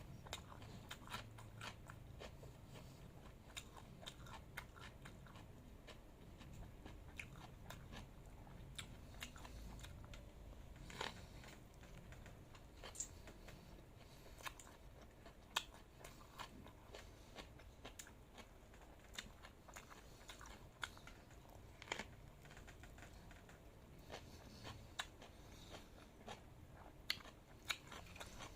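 Close-miked chewing and crunching of food: irregular sharp crunches and wet mouth clicks, a few every second, some louder bites standing out.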